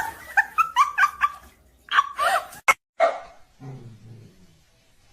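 A small dog yapping: a quick run of short, high barks, then a few more about two seconds in, with a sharp click between them.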